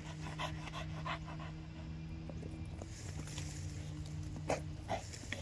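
Pit bull panting in quick short breaths over a steady low hum.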